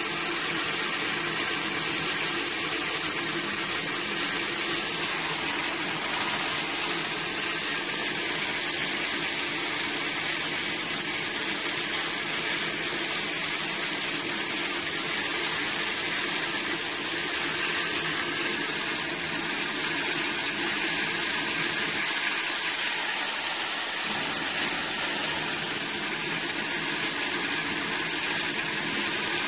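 Shower running: a steady hiss of water spray falling into a bathtub.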